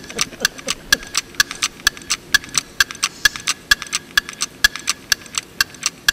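Countdown voting music over the hall's sound system: a clock-like ticking track, with sharp, even ticks about four a second, each carrying a short high ping, marking the time allowed for the audience vote.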